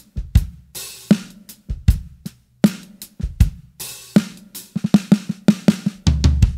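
Drum kit groove of bass drum, hi-hat and a low, fat snare: a 14x6.5 Gretsch Full Range walnut snare damped by a Mr. Muff's Muffin felt ring that covers the whole head, softening the attack and taking away almost all the overtones. Two cymbal crashes ring out, about a second in and again near four seconds, and a quick fill near the end closes on a ringing low drum note.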